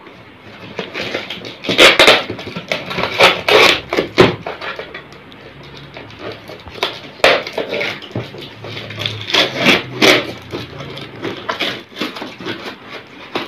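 Small cardboard parcel box being opened by hand: packing tape and the shipping label ripped off and the flaps pulled apart, in a run of short, sharp tearing and crackling noises.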